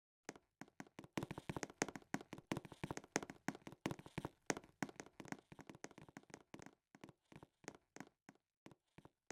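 A quick, irregular run of light taps or clicks, several a second, thinning out to a few spaced taps near the end.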